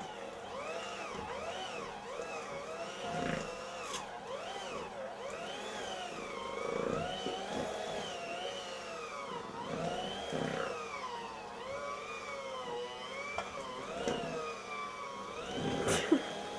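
Electric hand mixer running in a bowl of cheesecake batter as eggs are beaten in one at a time, its motor whine wavering up and down in pitch as the beaters work the batter. A sharp knock near the end.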